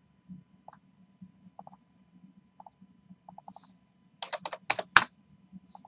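Typing on a computer keyboard: scattered faint key clicks, then a quick run of about five louder keystrokes a little over four seconds in.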